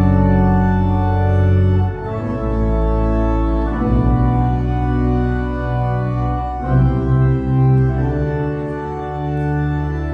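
Church organ playing slow held chords with a deep bass underneath, the chord changing every second or two.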